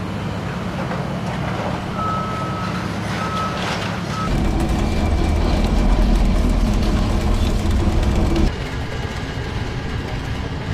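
Heavy excavator-type machine's engine running steadily, with three short warning beeps about two to four seconds in. Just after the beeps the engine gets louder, as if working under load, then drops back to a steady run about eight and a half seconds in.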